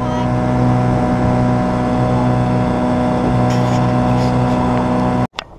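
Outboard motor running steadily at cruising speed, heard from on board the aluminium boat it is pushing, with an even engine hum and water noise. It cuts off suddenly near the end.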